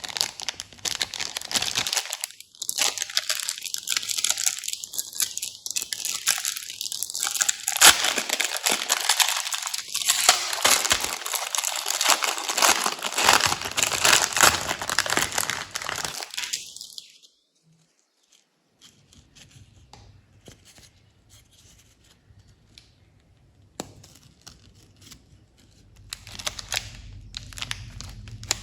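Plastic candy wrappers being torn open and crinkled by hand, a dense crackling run for about the first seventeen seconds, then much quieter, with rustling coming back near the end.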